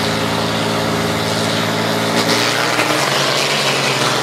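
Two diesel pickup trucks drag racing at full throttle, their engines running hard with a steady drone, over heavy exhaust and tyre noise; the engine note changes about two seconds in.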